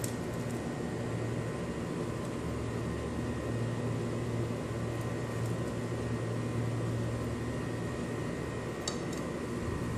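Steady low hum with a hiss and thin steady tones: background noise from a fan or appliance. A faint click comes near the end.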